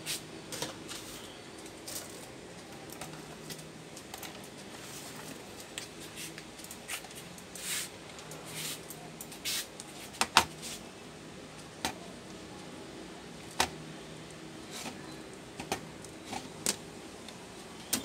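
Steady low hum, with scattered sharp clicks and light taps at irregular intervals; the loudest click comes about ten seconds in.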